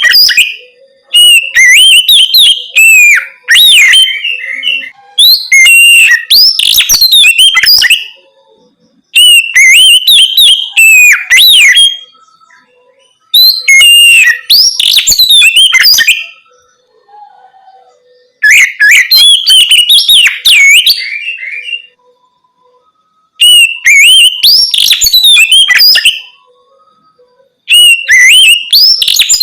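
Oriental magpie-robin (kacer) singing loudly in full open voice: varied, quickly gliding whistled notes and rapid trills, in about seven phrases of two to three seconds, each followed by a short pause.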